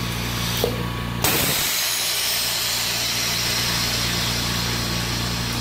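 DIY oxygen concentrator running: the 2-horsepower compressor hums steadily, a solenoid valve clicks about half a second in, and after a short lull a loud rush of hissing air starts suddenly about a second in as the valves switch between the sieve beds in the pressure swing cycle.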